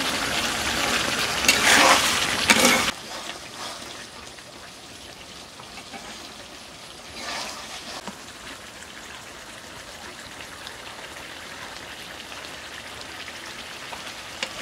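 Spiced chicken pieces sizzling in a kadai as a metal spatula stirs them, with a couple of louder scraping strokes about two seconds in. The meat is being dry-fried down in its masala without water. The sizzle cuts off suddenly about three seconds in, leaving only a faint steady hiss.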